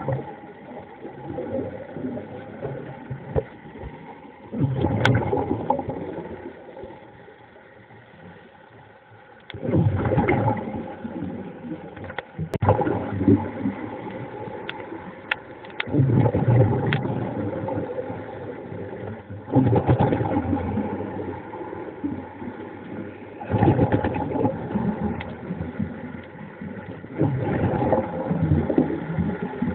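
Muffled underwater sound: a steady faint motor hum, with a rush of bubbling noise that swells and fades about every four to five seconds, in the rhythm of a diver's breathing.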